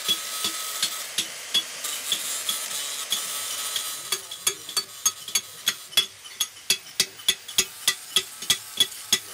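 Metalworking hand tool tapping on a bronze casting in a steady rhythm, about two taps a second and then nearer three a second from about four seconds in. For the first few seconds a steady abrasive grinding hiss runs under the taps and then fades.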